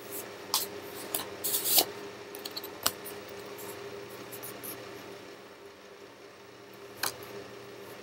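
Paper index cards rustling as they are handled and held up close to the microphone: a cluster of sharp rustles in the first three seconds and one more about seven seconds in, over a faint steady hum.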